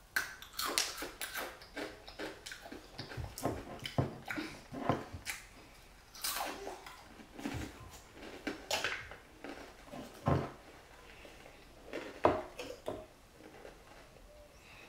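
Yan Yan biscuit sticks being bitten and chewed: a string of irregular crunches and chewing sounds.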